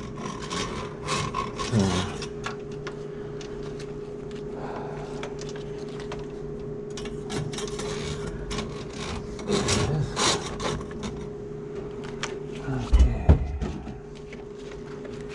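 Handheld drum drain auger running, its spinning cable rasping and scraping as it is fed into a grease-clogged kitchen sink drain and has a hard time going down. A few heavy knocks come near the end, and then the motor's hum drops away.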